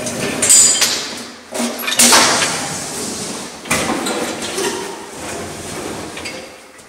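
Hard-shell suitcase being set into a child's pull wagon: several clattering knocks and scrapes, the loudest about two seconds in, with the wagon rattling.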